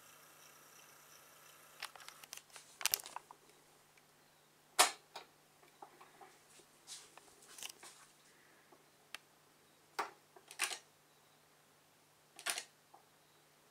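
Irregular clicks and knocks over a faint steady hum, the loudest about five seconds in and a small cluster near ten seconds: handling and control noise around a Technics SL-D310 direct-drive automatic turntable while its platter spins a record.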